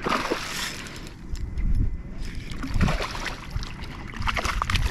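A hooked largemouth bass thrashing and splashing at the water's surface as it is reeled in to the bank, in irregular bursts of splashing and sloshing.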